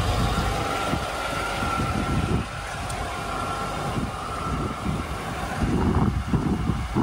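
Low steady rumble of an idling vehicle engine, with wind buffeting the microphone in uneven gusts, strongest near the end.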